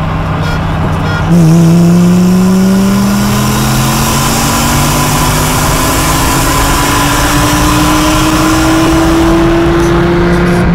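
A car engine heard from inside the cabin under hard acceleration. It comes on suddenly about a second in, then its pitch climbs slowly and steadily in one long pull, dropping sharply near the end.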